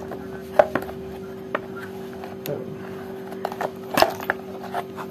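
Scattered clicks and knocks of a Philips blender's plastic motor housing being handled and its back cover fitted, with the loudest knock about four seconds in as the housing is tipped over. A steady low hum runs underneath.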